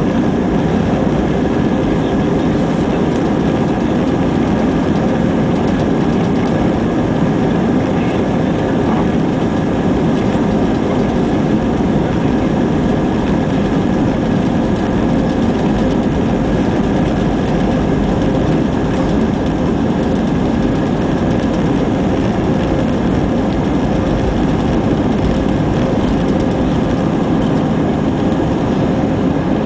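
Cabin noise inside an Airbus A320 climbing after takeoff: the jet engines and rushing air make a loud, steady rumble, with a few faint steady tones running through it.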